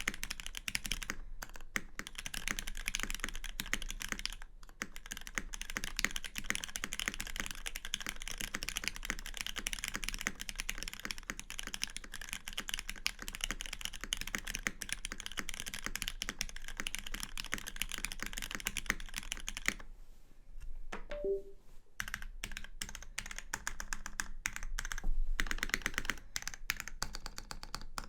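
Typing on a Lin Dolphin V3 custom mechanical keyboard with lubed Cherry MX Black linear switches in an aluminum plate and GMK keycaps: a fast, continuous stream of keystrokes. There is a pause of about two seconds roughly three-quarters of the way through.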